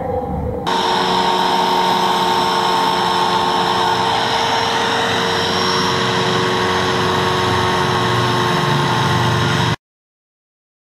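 Angle grinder fitted with a sanding disc, running with a steady whine and a hiss of sanding as it smooths the edge of a galvanized steel sheet. It starts abruptly about a second in and cuts off suddenly near the end.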